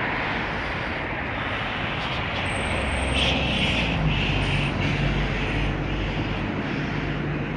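A low, steady engine drone over a constant rush of outdoor noise and wind, the drone growing more prominent about halfway through.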